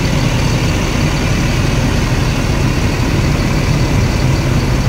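Mercedes-Benz O500RS 1836 coach's diesel engine running at low revs as the bus rolls slowly past at close range, a steady, loud, low engine sound.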